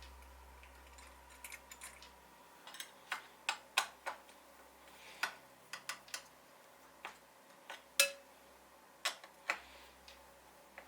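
Irregular light clicks and taps of PC hardware being handled during assembly, about fifteen in all, the sharpest one about eight seconds in. A faint low hum stops about two seconds in.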